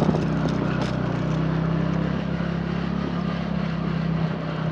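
Two-wheeler's engine running steadily while riding, a constant drone that holds the same pitch throughout.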